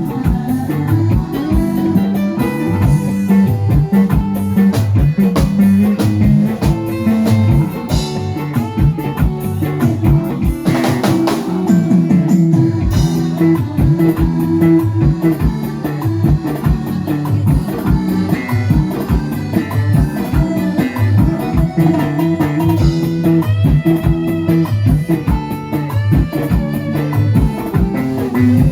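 Band music played loud through a sound system: a plucked guitar lead over bass guitar and drum kit with a steady beat.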